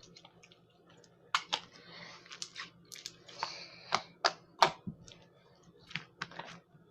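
Homemade slime being squeezed and poked by hand, making irregular sticky clicks and pops.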